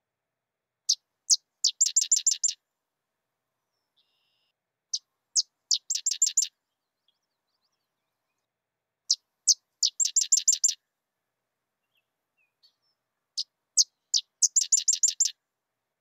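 Sedge wren singing four times, each song made of two separate chips followed by a dry, rapid chattering trill that stays on the same pitch to the end.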